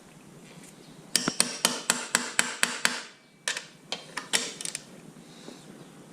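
Hammer tapping a socket bit into a seized motorcycle footpeg (rearset) bolt. There is a quick run of about eight sharp metallic taps, roughly four a second, then a few lighter taps.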